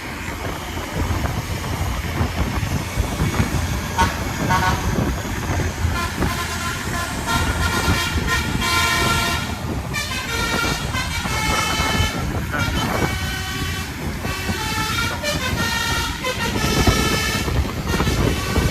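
Bus's Basuri V3 'telolet' musical air horn playing a tune of changing notes, sounding in several runs from about four seconds in, over the low rumble of the bus's engine and road.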